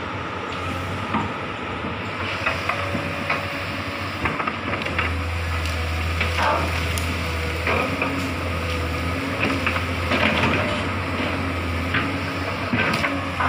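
Komatsu hydraulic excavator's diesel engine running with a steady low drone, louder from about five seconds in, while branches and felled wood crack and snap again and again.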